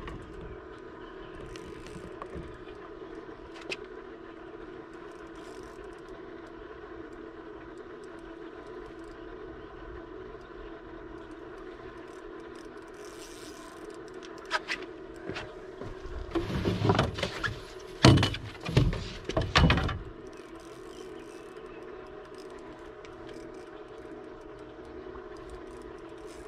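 A boat's motor running steadily with an even hum. A little past the middle come a few seconds of loud knocking and rattling.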